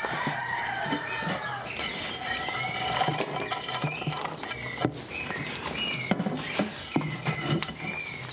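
Wooden spoon stirring crisp chicharrón pieces into salsa in a clay cazuela, with small clicks and scrapes as more pieces are crumbled in. High chirping animal calls run underneath throughout.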